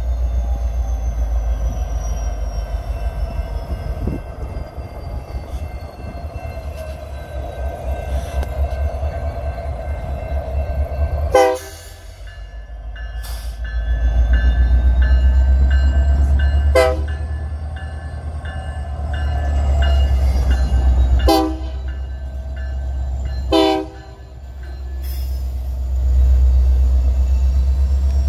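BNSF GP60M-3 diesel-electric locomotive running past at slow switching speed, its engine giving a steady low rumble, with several short horn blasts. A bell rings about twice a second through the middle of the passage.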